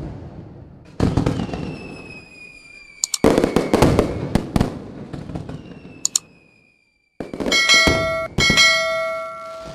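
Fireworks sound effect: sharp bangs with crackling tails, three bursts in the first few seconds, and a slowly falling whistle. Near the end a bell-like chime rings twice.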